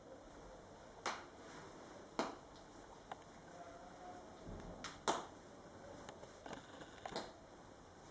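Soft, sharp rustles and scratches of woven cotton hammock fabric as two kittens wrestle and claw at it, about six short swishes spread through the quiet.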